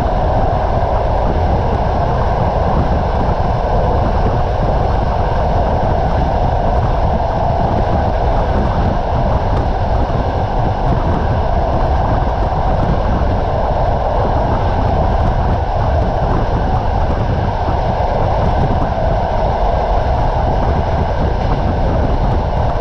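Passenger train running steadily along the line, heard from inside a carriage at the window: an even rumble and rush of wheels on rails, with no distinct rail-joint clicks.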